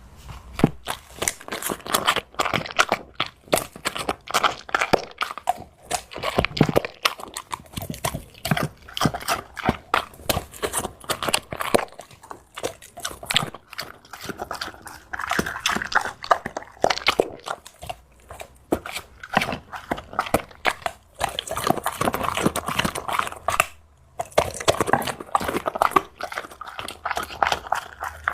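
A dog chewing and biting on something, making a run of irregular crunching, crackling clicks.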